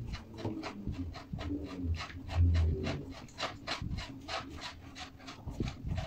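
Quick rasping strokes, about five a second, with low knocks and thuds from handling a homemade generator's transformer core and wooden frame.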